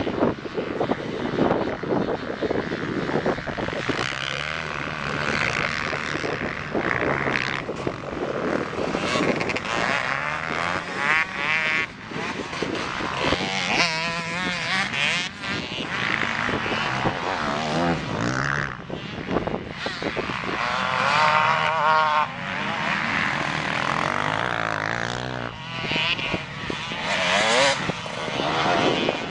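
Motocross bikes revving hard as they ride round the dirt track, the engine pitch repeatedly rising and falling through acceleration and gear changes, with more than one bike heard at once.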